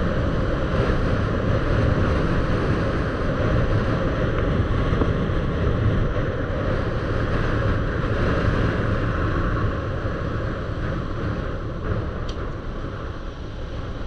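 Steady wind rush on the microphone over the running noise of a moving vehicle, a continuous low rumble with no distinct engine tone.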